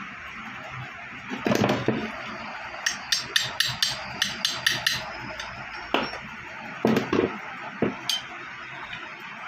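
Hammer striking a fastener in a metal TV wall-mount bracket held against a wall. A couple of heavy knocks come first, then a quick run of about nine light taps at roughly five a second, then a few more scattered knocks.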